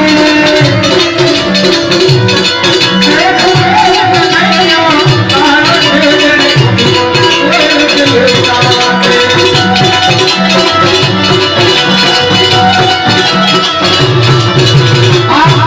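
Music with a steady, fast beat of percussion and a low drum pattern under held melody lines.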